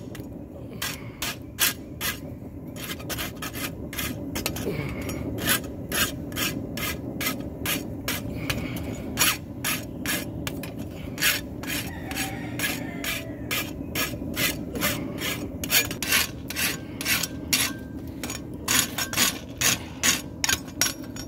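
A farrier's file rasping the heels of a hot steel horseshoe clamped in a vise, to take off sharp edges. The strokes are quick and even, about two to three a second, over a steady low background hum.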